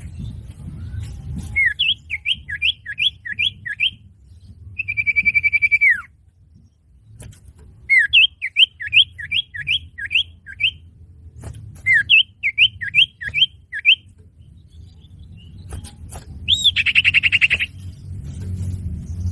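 Common iora (cipoh) calls used as a bird lure: three phrases of about six quick rising whistled notes each, and twice a long buzzy note, the first ending in a falling slur. A low rumble runs beneath them.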